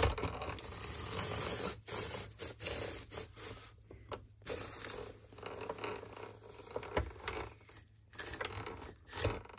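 Hand-cranked antique Rival No. 2 commercial apple parer running through a cycle: the cast-iron gears and arms clatter while the paring blade scrapes the peel off the turning apple. Sharper knocks come about seven and nine seconds in, as the slicing blade gets only about halfway through and the apple doesn't release.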